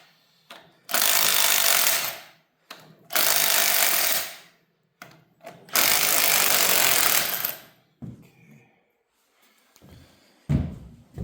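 Impact wrench run in three bursts of a second or two each, spinning off bolts on the other cylinder head of a Chevy 350 V8, followed by a couple of low thuds near the end.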